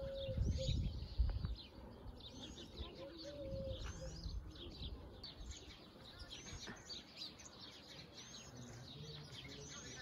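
Barn swallows twittering: a steady stream of quick, high chirping notes. A low rumble sits under the first second and a half.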